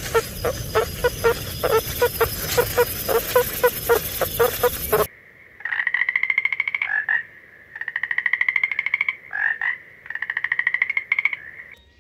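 A meerkat calling in quick, repeated short chirps, about three a second, over a steady hiss. After a sudden cut, a frog calls in three long pulsed trills of about a second and a half each, with short notes between them.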